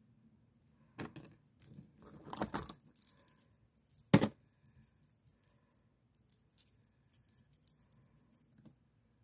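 Beaded jewelry being handled close up: beads rustling and clicking together, with one sharp, loud click about four seconds in and faint small ticks after it.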